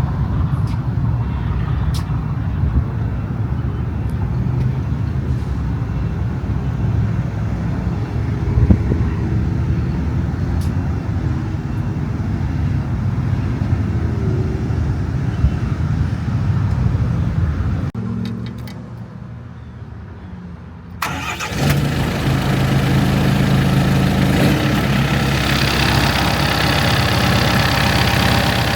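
The Yanmar diesel engine of a vacuum excavator running steadily. About two-thirds of the way through, the sound drops to a quieter stretch of a few seconds, then comes back suddenly and louder, with a rushing hiss that grows near the end.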